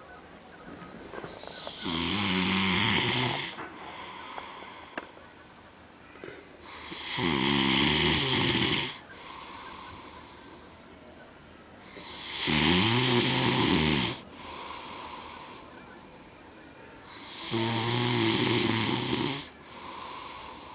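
A man snoring loudly in his sleep: four long snores, about one every five seconds, each followed by a softer, shorter breath.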